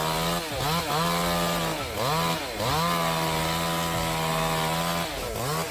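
Chainsaw running at high revs, its pitch dipping briefly and climbing back about four times.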